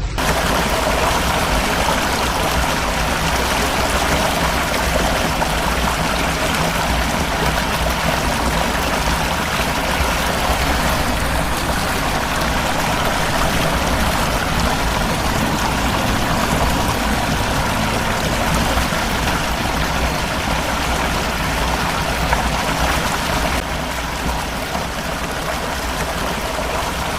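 Floodwater rushing, a steady loud wash of water noise that eases slightly a few seconds before the end.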